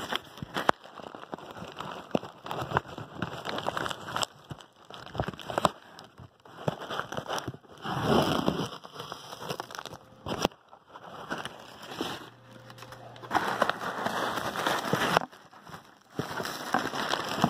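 Crumpled brown kraft packing paper crinkling and rustling as it is handled in a cardboard shipping box, with irregular crackles. It gets louder about eight seconds in and again for a couple of seconds near the end.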